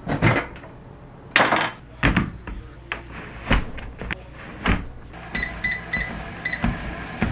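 Knocks and thuds of sneakers being pulled on and feet stepping onto an under-desk walking treadmill, then about five seconds in a few short electronic beeps from the treadmill, followed by a steady running noise and regular footfalls on its belt.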